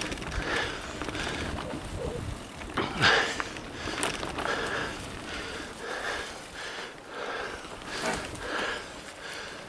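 Full-suspension mountain bike riding a dirt forest trail: rolling tyre and rattle noise over a low rumble of wind on the microphone, with sharp knocks from bumps about three and four seconds in. Through it runs the rider's hard breathing, about two breaths a second.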